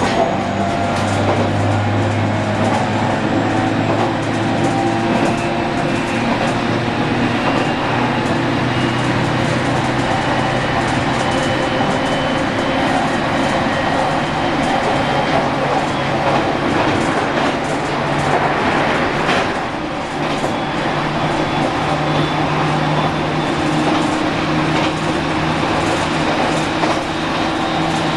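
JR Kyushu 815 series electric train running, heard from on board: steady tones from its VVVF inverter and traction motors over the noise of the wheels on the rails, with a brief drop in level about twenty seconds in.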